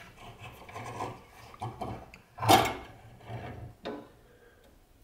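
Scraping and rubbing as a wire hanger is twisted by hand at the mouth of an acid-etching tube, in irregular strokes, the loudest a brief scrape about two and a half seconds in.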